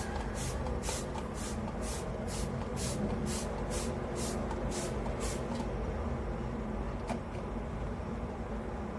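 Trigger-pump oil spray bottle spraying in quick repeated squirts, about two short hisses a second, which stop a little over halfway through. A single click follows near the end. A steady low rumble runs underneath.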